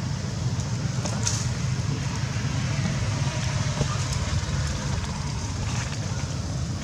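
Steady low rumbling background noise with a few faint, short high-pitched sounds on top.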